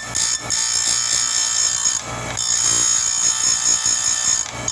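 Chainsaw chain grinder with a CBN wheel grinding the cutter teeth of a saw chain: a loud, high-pitched grinding whine, breaking off briefly about two seconds in between teeth.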